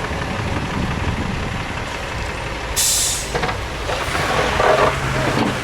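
Heavy diesel vehicle running, with a short sharp air-brake hiss about three seconds in, over a steady low engine rumble.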